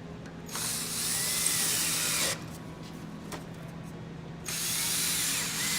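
Power drill driving screws into a Western Red Cedar table end cap: two runs of about two seconds each, the first about half a second in and the second starting near the end.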